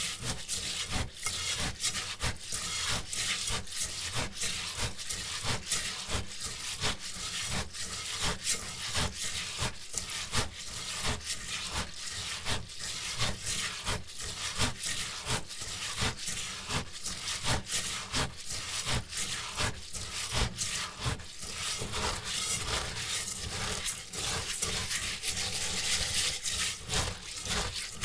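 Uncooked rice being washed by hand: grains scrubbed and rubbed against each other in a bowl, in rhythmic strokes about two or three a second.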